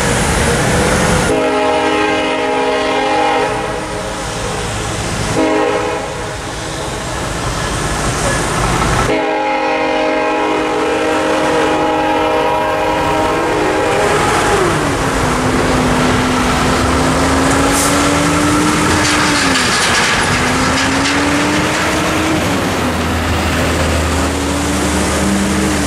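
A Norfolk Southern freight locomotive's air horn sounds two long chord blasts. The first runs from about 1 to 5 seconds in, the second from about 9 to 14 seconds. After that, road traffic passes on wet pavement.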